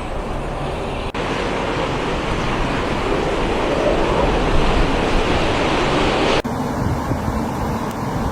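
Wind blowing, a steady rushing noise, broken by two abrupt cuts, about a second in and about six seconds in.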